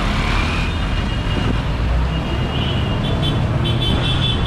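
Busy city street traffic: a steady rumble of engines and road noise from passing vehicles. In the second half, a short high-pitched tone sounds several times.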